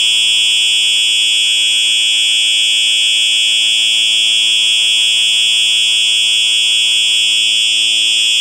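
Simplex 4903-9238 fire alarm horn sounding a loud, steady, high-pitched continuous tone in horn-only mode, with no pulsing or breaks.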